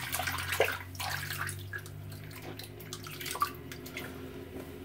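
Water splashing and dripping at a bathroom sink in quick, irregular splashes, over a low hum that stops a little over three seconds in.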